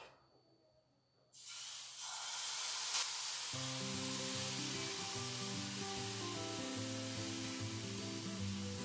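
Banana pancake batter sizzling in a hot ghee-greased frying pan: a steady hiss that starts suddenly about a second and a half in. Background music with notes comes in about two seconds later.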